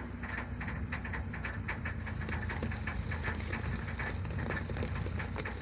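Tractor engine running steadily with a dense, irregular clatter of small knocks over it, busiest in the first couple of seconds.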